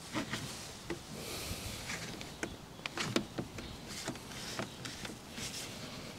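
Faint, scattered clicks and light scraping as a stainless-steel mesh radiator grille is pushed and worked into the plastic front bumper intake of a Porsche 718 Boxster GTS, trying to get its retaining clip to seat.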